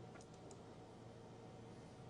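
Near silence: room tone with a faint steady hum and a few faint clicks in the first half second.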